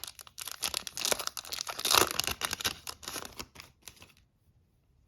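Foil wrapper of a hockey-card pack being torn open and crinkled, the crackling stopping about four seconds in.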